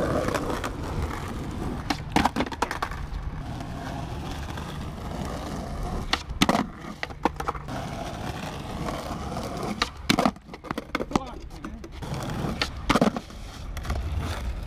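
Skateboard wheels rolling on asphalt with a steady rumble, broken several times by sharp clacks of the board popping and landing.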